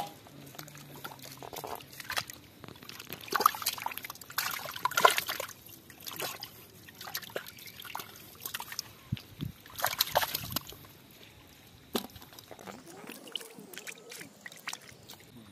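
Hands sloshing and splashing through muddy water in a shallow pit, groping for fish, in irregular bursts that are loudest a few seconds in and again about ten seconds in.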